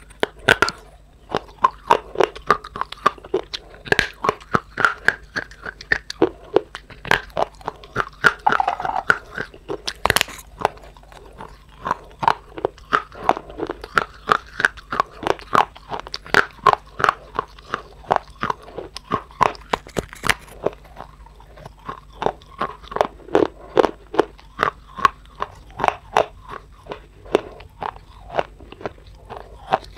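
Close-miked biting and chewing of crunchy clay: a steady run of sharp crunches, a few a second.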